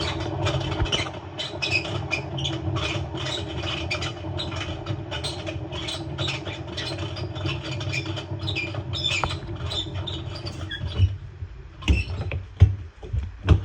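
LG washing machine drum turning with its motor detached, the worn drum bearings grinding with a low rumble and rapid rattling clicks; the owner guesses the inner tub seal has failed and let the bearings go. The grinding stops about eleven seconds in, followed by a few knocks.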